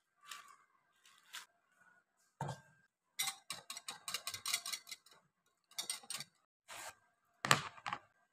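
Wire balloon whisk beating curd in a ribbed glass bowl, its wires clicking and scraping against the glass. The strokes come in a quick run, then in a few short bursts, the last of them the loudest.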